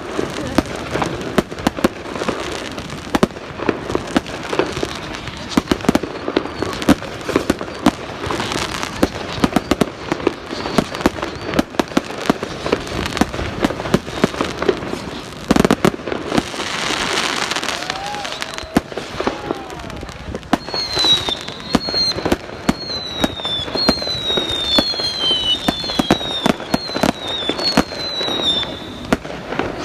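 Fireworks display: a dense, continuous run of bangs and crackles. About halfway there is a burst of crackling hiss, and in the last third a string of short, falling whistles.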